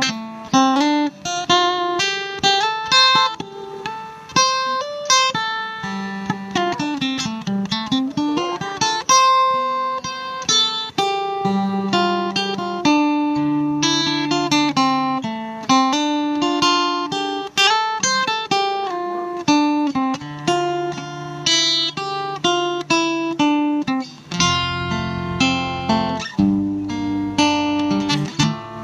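Acoustic guitar music of plucked notes over a bass line, played back through a homemade speaker built into a metal ammo can.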